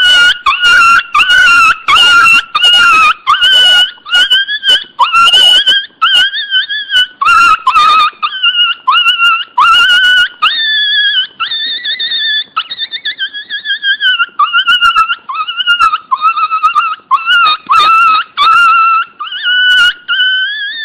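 A puppy crying loudly: high-pitched whines repeated one after another, each rising and falling in pitch, with sharp yelps breaking in among them over the first half.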